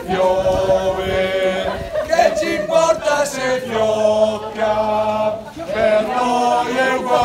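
Several people singing together, men's voices strongest, in long held notes.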